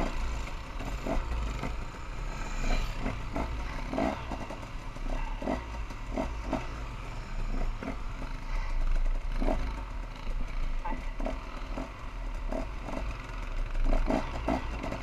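ATV engine running while riding a snowy trail, with wind rumbling on the camera's microphone and irregular short knocks.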